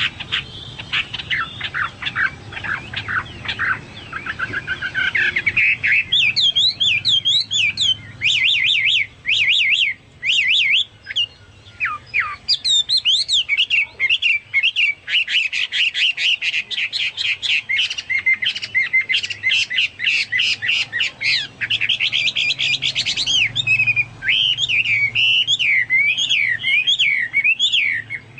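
Hwamei songbird singing a long, varied song of rapid repeated notes, slurred whistles and fast trills, with phrases like those of a cucak Papua or cucak mas.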